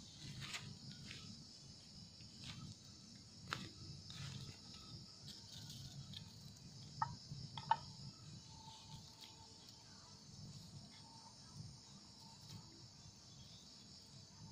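Steady high-pitched chorus of night crickets and insects, with scattered crackles and snaps from a small campfire being tended. Two sharp snaps about seven seconds in are the loudest sounds.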